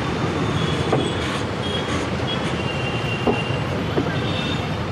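Steady noise of busy city road traffic, with a few faint high-pitched squeals over it.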